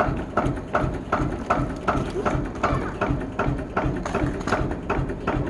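Single-cylinder hot-bulb tractor engine of the Lanz Bulldog type running at a slow, even idle. Each firing stroke gives a deep knock, at a little under three a second.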